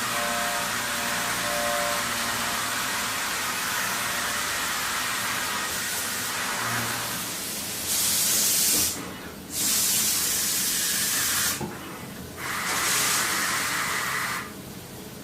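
A steady mechanical hum, then three loud bursts of hissing, each one to two seconds long, starting about eight seconds in.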